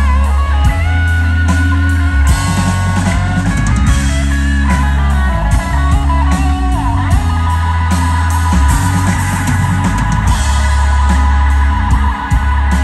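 Live band playing an instrumental passage with no singing: electric guitars over electric bass and a drum kit with steady cymbal and drum hits.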